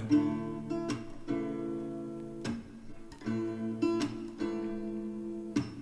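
Background music: an acoustic guitar strumming slow chords, about one strum a second, with no singing.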